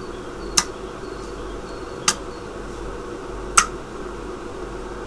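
Relays on a PiXtend PLC board clicking as the program switches them, one sharp click about every second and a half, over a steady low electrical hum.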